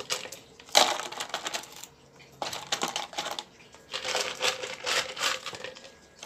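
Pieces of crushed stone gravel clattering against each other and against plastic as they are handled and dropped into a plastic pot, in uneven bursts with one sharp clack about a second in.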